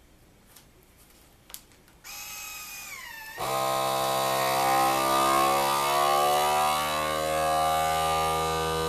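Countertop vacuum sealer: after a couple of faint clicks, a motor starts about two seconds in with a short falling whine. Then the vacuum pump runs loudly and steadily, its pitch wavering slightly at first, as it draws the air out of a food-saver bag.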